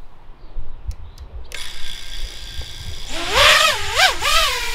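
Electric motors and three-blade racing props of a 5-inch FPV quadcopter (iFlight Nazgul5 on 6S): about a second and a half in the motors spin up to a steady high whine, and about three seconds in the throttle comes up as it takes off, the whine rising and falling several times. Low wind rumble on the microphone underneath.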